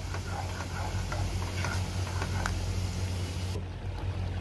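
A spoon stirring thick tomato pizza sauce as it bubbles in a metal pot on a gas stove: soft scrapes and small wet ticks over a steady low hum. The stirring stops near the end.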